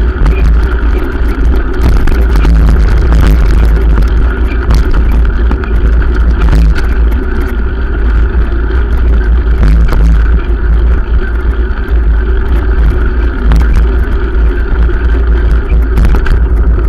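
Loud, steady wind rumble and road noise on a bicycle-mounted action camera while riding along a footpath, with frequent short knocks and rattles from bumps in the path.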